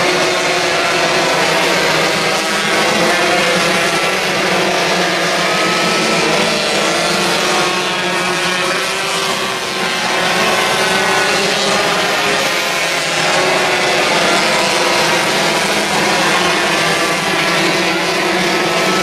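Several 125cc winged micro sprint cars racing, their engines a continuous loud drone whose pitch rises and falls as the cars come past.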